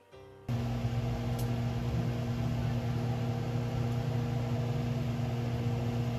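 Steady hum and rush of a kitchen range-hood exhaust fan running over a lit gas stove burner. It cuts in about half a second in.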